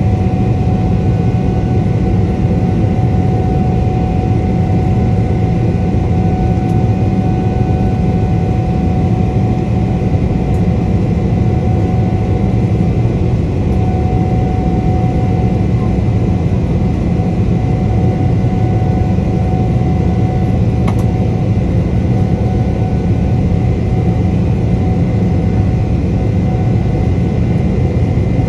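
Cabin noise of a Boeing 777-300ER in its climb after takeoff, heard inside the cabin beside the wing: its GE90 turbofan engines give a steady, loud rumble with faint whining tones above it.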